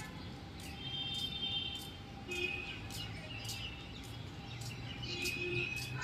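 Birds chirping: short, high calls repeating about twice a second, with brief whistled notes between them.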